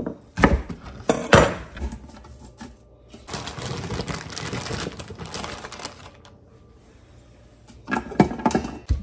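A chef's knife chopping through celery stalks onto a plastic cutting board, two sharp knocks. Then a plastic bag of baby carrots crinkling for a few seconds, and a burst of clatters near the end as vegetables drop into the stainless steel inner pot of an Instant Pot.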